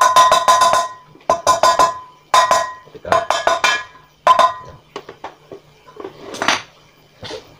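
A hammer tapping a wheel bearing into the hub of a cast-aluminium motorcycle rear wheel, in several bursts of quick strikes that ring with a clear metallic tone, then a few lighter, scattered knocks near the end.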